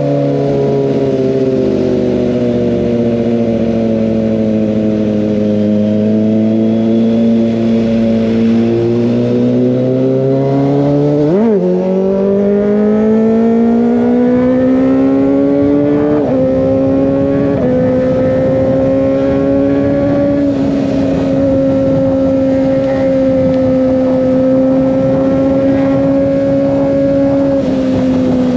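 Kawasaki ZX25R's 249 cc inline-four running through an Over Racing GP-RS full-system exhaust while riding. The revs ease down slowly, then a quick throttle blip comes a little before halfway. The engine then pulls up in revs with a couple of brief breaks and settles into a steady cruise.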